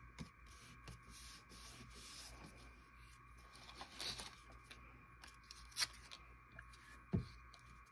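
Paper scraps being handled: quiet rustling and sliding of paper, with scattered light clicks and taps, a sharper click near the middle and a dull thump about seven seconds in, over a faint steady hum.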